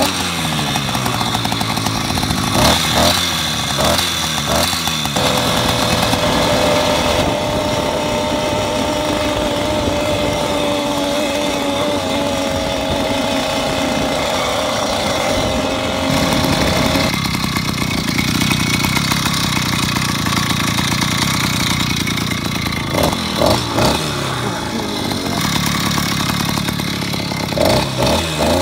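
Small two-stroke gas engine of a motorized bicycle running while being ridden, its pitch rising and falling with the throttle and holding steady for a long stretch in the middle.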